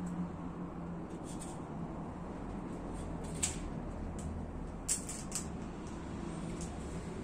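Scattered light clicks and taps of a small plastic basket lined with wire mesh being handled, the loudest about three and a half and five seconds in, over a steady low hum.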